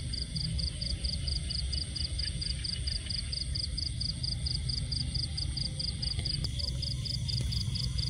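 A cricket chirping in a steady, even pulse, about four high-pitched pulses a second, over a low steady rumble.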